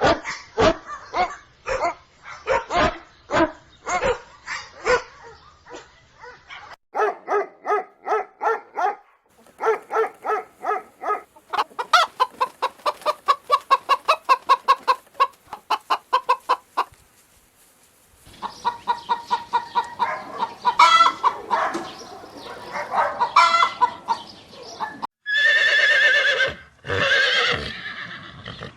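Chickens clucking in quick runs of short clucks, with a hen cackling, after a few seconds of repeated dog barks at the start. Near the end come two long, wavering animal calls.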